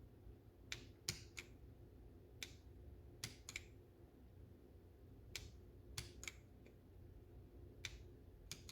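Faint, separate clicks of keys being pressed on a Womier K87 mechanical keyboard with Gateron switches, about ten presses spread unevenly, as the Function and Left Control keys are pressed to cycle the base lighting modes.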